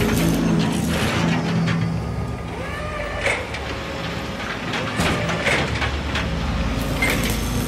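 Background music track with sustained bass notes that shift every second or so, and a few rising sweeps.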